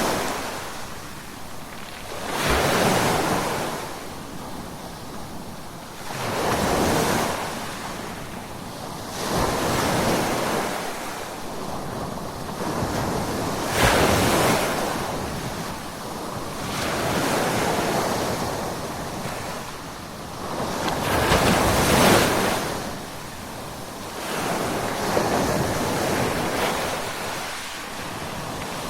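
Ocean waves breaking on the shore, each surge of surf swelling and washing back every three to four seconds.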